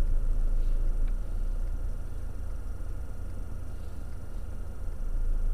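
Steady low rumble of a car's cabin while it creeps forward in slow traffic, as picked up by a dashcam microphone, with a faint click about a second in.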